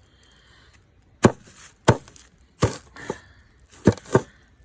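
A string of hard blows crushing a hard-shelled beetle: five sharp knocks and one lighter one over about three seconds, starting about a second in.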